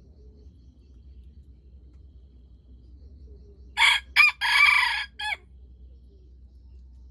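Red junglefowl rooster crowing once, a short broken crow of two quick notes, a longer held note and a brief clipped tail, lasting about a second and a half in the middle.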